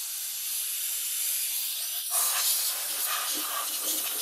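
Aerosol can of brake cleaner spraying with a steady hiss onto the brake master cylinder and linkage. About two seconds in the sound turns louder and uneven, with irregular rough strokes.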